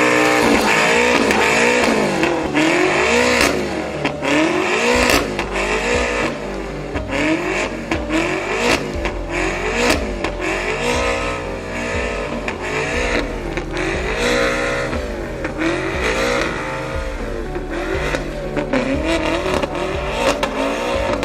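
Sports car engine revved over and over while standing, its pitch rising and falling about once a second, with sharp cracks scattered through it.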